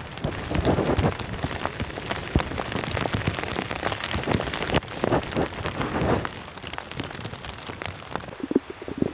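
Rain falling on a tarp shelter overhead: a dense, irregular run of sharp drop hits over a steady hiss, thinning near the end.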